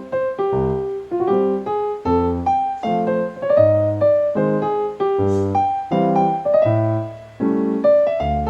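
Background piano music: a melody of separate notes over low bass notes.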